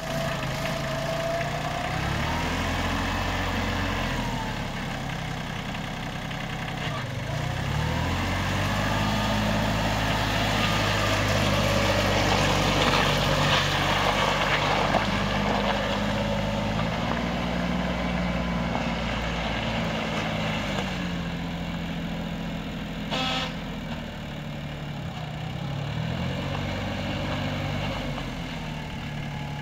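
Compact tractor's engine running as it is driven, its pitch rising and falling repeatedly with the throttle. A single sharp knock sounds about three-quarters of the way through.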